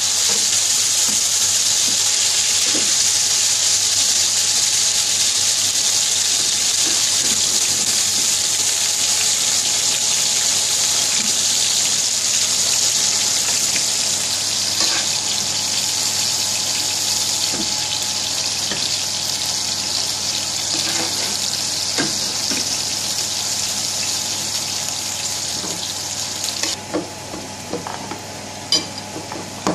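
Beef burger patties sizzling steadily in hot oil in a frying pan, with an occasional tap of the spatula. Near the end the sizzle cuts off, followed by a few crackles of a paper towel being patted down by hand.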